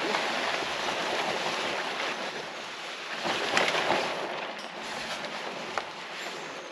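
Wind rushing through trees, a hiss that swells in gusts and fades again, with a couple of faint clicks.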